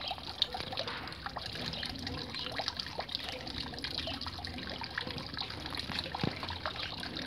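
Small garden-pond fountain: a thin jet of water falling back onto the pond surface, a steady trickling splash dotted with many small droplet ticks.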